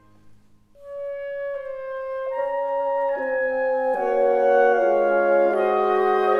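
Background music: after a brief pause a new passage begins with one held note, and more sustained notes join it, building into held chords.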